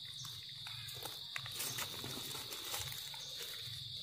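Steady high-pitched drone of insects such as cicadas or crickets, with scattered faint clicks and rustles on top.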